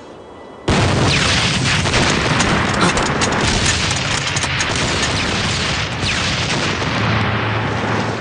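Sound effect of a large explosion, an ammunition depot blowing up: a sudden blast a little under a second in, then a long rumbling roar full of crackles that slowly fades.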